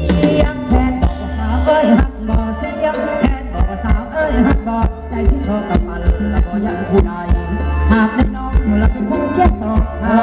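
Live band playing Thai ramwong dance music, a steady, even drum beat over bass and melody.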